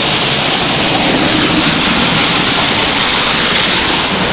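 Automatic tunnel car wash running: a steady, loud rush of water jets spraying a car while the rotating brushes scrub it.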